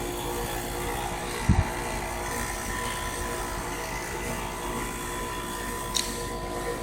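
Heat pump outdoor unit running in defrost mode, making a steady mechanical hum with several steady tones. There is a short low thump about one and a half seconds in and a brief click near the end.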